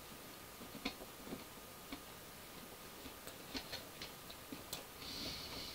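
Faint, irregular mouth clicks and smacks of someone chewing crispy fried chicken, with a soft hissing breath near the end.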